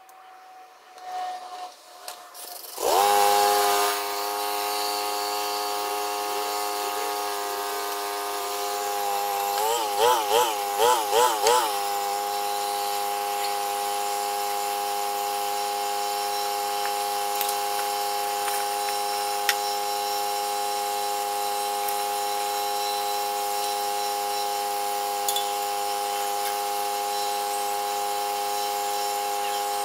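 A machine running at a steady pitch, starting suddenly about three seconds in, with a brief wavering in its pitch around ten to twelve seconds in.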